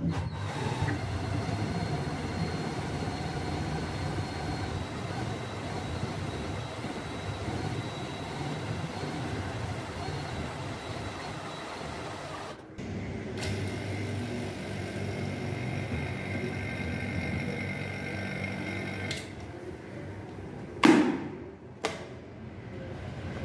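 Steady running drone of the motorised spindle rig turning a cricket bat while thread is wound onto its handle. The drone breaks off for a moment about halfway through, then resumes. Near the end there is one sharp, loud knock, followed by a smaller click.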